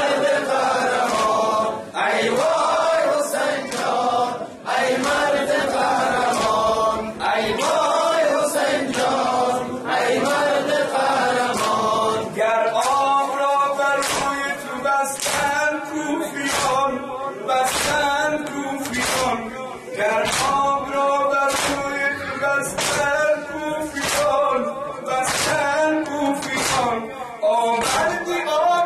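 A male reciter sings a Persian noha, a mourning lament for Imam Hussein, with the men's voices joining in chorus. From about halfway in, a sharp rhythmic slap about once a second runs under the singing, the mourners' chest-beating (matam) in time with the lament.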